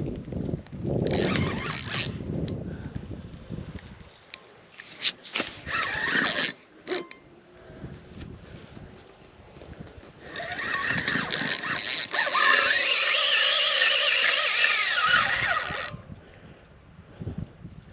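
Spinning reel's drag buzzing as a hooked fish runs and pulls line off the spool. It comes in short bursts early on, then a steady loud run of about six seconds starting around ten seconds in.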